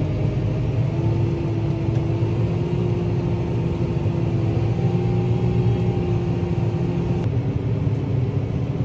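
Tractor engine running steadily while driving, heard from inside the cab as a low drone with a steady whine; the whine changes abruptly near the end.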